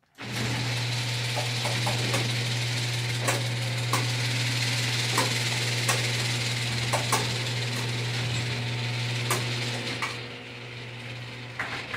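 Electric garage door opener driving the door down: a steady motor hum with clicks and rattles from the door and track, the motor dropping off about ten seconds in.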